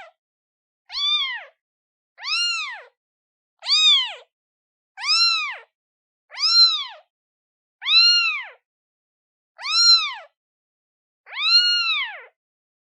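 Newborn kitten, one day old, meowing over and over: about eight high calls, each rising and then falling in pitch, spaced about a second and a half apart with silence between. These are a newborn kitten's calls for its mother.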